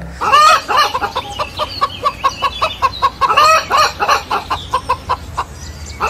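A flock of hens clucking, with many short calls overlapping one another.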